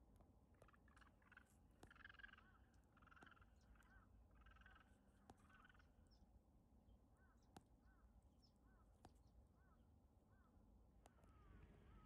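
Faint, distant bird calls over near silence: a run of harsh, caw-like calls in the first half, then a series of short chirped notes about twice a second.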